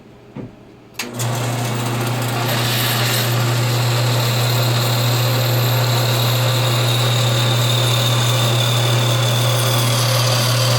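Electric power saw switched on about a second in and running steadily with a strong, even motor hum while it cuts through a piece of acrylic sheet.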